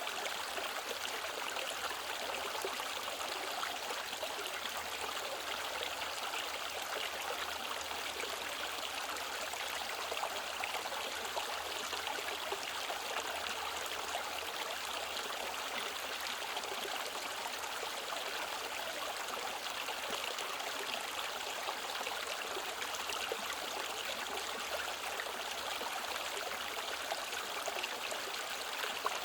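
Mountain valley stream running steadily: an even, unbroken rush of water.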